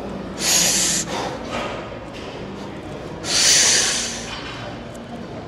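Two hard, noisy breaths from a weightlifter bracing over a loaded deadlift bar before the pull: one about half a second in, a longer one about three seconds in.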